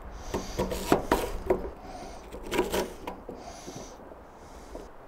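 Kitchen knife slicing and chopping an onion on a thin plastic cutting board. A quick run of sharp cuts through the first three seconds, then a few scattered ones.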